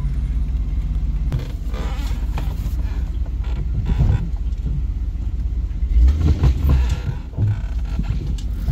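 An off-road vehicle's engine running low and steady, with the body creaking and a few knocks and bumps. The bumps are loudest about six to seven seconds in.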